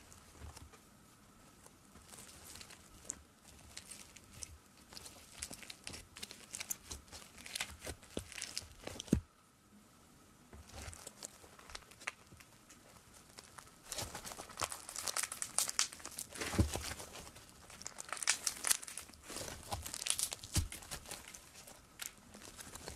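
Thick slime topped with sprinkles being poked, squeezed and pulled apart by hand: a stream of small crackling, crinkling pops. There is a short lull about nine seconds in, and the crackling grows busier in the second half.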